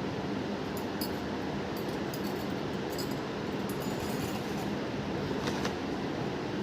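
A small handheld electric kitchen appliance motor running steadily with a low hum.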